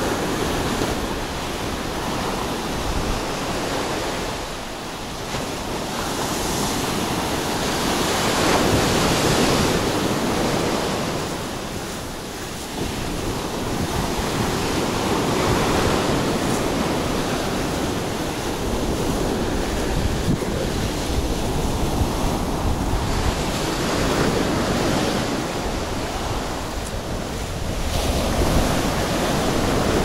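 Small waves breaking and washing up a sandy beach, the surf swelling and ebbing every several seconds, with wind buffeting the microphone.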